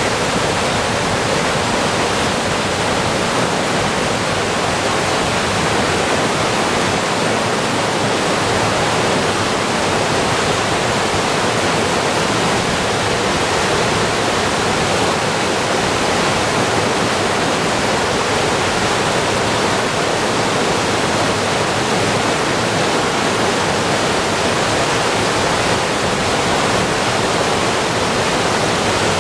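Flood-swollen river after a typhoon, its fast, heavy current rushing with a steady, loud roar.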